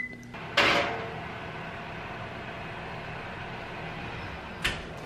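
Electric wall oven's keypad beeps once as it is set to bake at 350°F, then the oven door is pulled open with a short whoosh and a steady fan-like hum runs on; a short click comes about four and a half seconds in as the pan is reached for.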